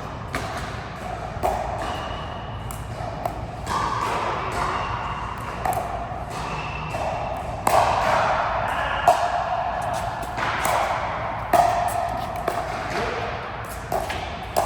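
A racket-sport rally: sharp ball strikes at intervals of one to two seconds, mixed with short squeaks of shoes on the court floor.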